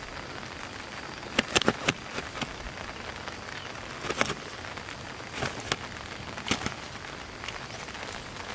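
Scattered short slaps and rustles, some in quick pairs, as a large carp is handled and pinned down on grass, over a steady hiss.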